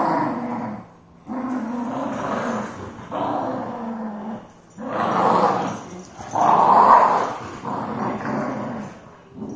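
Dogs growling while tugging on a toy in play: a run of long growls of a second or so each, with short breaks between, the loudest two past the middle.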